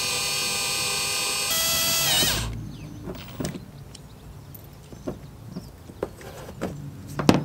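Bosch cordless drill-driver whining as it backs out the screws of a van's AC inlet plug; it speeds up about a second and a half in, then winds down and stops. Then come scattered light clicks and knocks as the loosened plug is handled, with a sharp click near the end.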